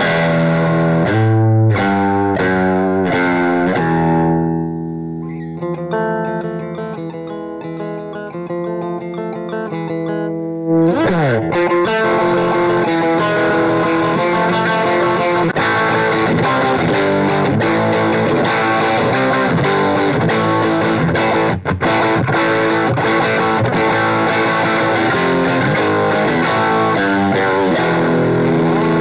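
Slick SL59 electric guitar with a P90 pickup played through an amplifier with some distortion: strummed rock chords, then a quieter passage of picked single notes about five seconds in, a slide down near the eleven-second mark, and loud full chords after that.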